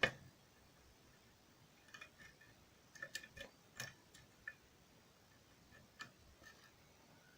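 Faint, scattered metallic clicks and ticks of a lock pick and tensioner working the pins of a pin-tumbler challenge lock during single-pin picking. A sharper click comes right at the start, then small clusters of clicks about two to four seconds in and a few more around six seconds.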